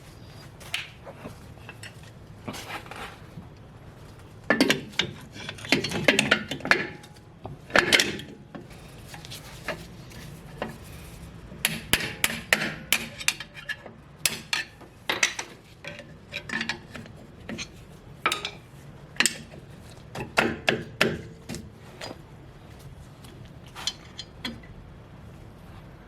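Metal hand tools clinking, knocking and scraping against the parts of a rear drum brake in irregular clusters of sharp clatters, during the replacement of the wheel cylinder.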